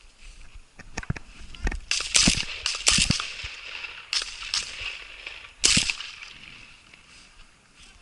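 Shotgun shots fired at partridges: three loud shots about two, three and nearly six seconds in, with lighter sharp clicks just before the first.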